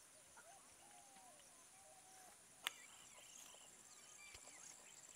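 Faint open-country ambience. A steady high insect drone runs throughout, birds give short whistled calls in the first couple of seconds, and one sharp click comes about two and a half seconds in.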